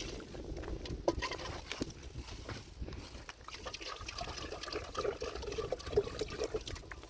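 Water pouring and trickling, with small splashes and uneven gurgling.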